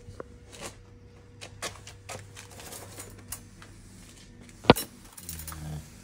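Scattered light clicks and rustles of boxes and metal parts being handled and shifted, with one sharp, louder click late on, over a faint low hum.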